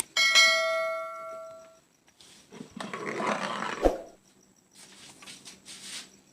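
A single bell-like metallic ring that fades away over about a second and a half. It is followed by handling and rustling noise with a sharp click a little before the four-second mark.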